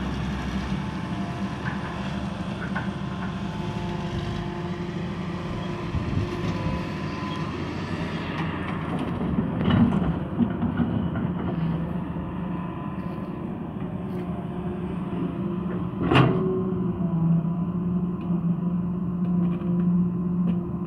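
Hydraulic excavator's diesel engine running steadily under load as it digs soil and loads a dump truck. There is a louder burst about ten seconds in, and a sharp knock with a brief ring about sixteen seconds in.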